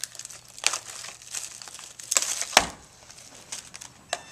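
Wrapper of a trading-card pack crinkling and tearing as it is pulled open by hand, in several sharp crinkles, the loudest about two and a half seconds in.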